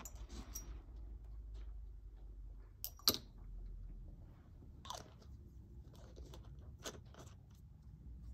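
Small clicks and taps of glass ink bottles and metal screw caps being handled on a tabletop. The sharpest click comes about three seconds in, with others around five and seven seconds in.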